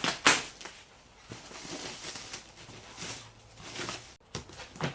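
Foam floor mat being handled: a sharp scraping rustle about a quarter second in, then softer scuffs and rustles.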